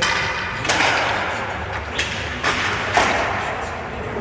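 Roller hockey play: about five sharp, echoing hits of sticks, ball or puck and boards, spaced irregularly.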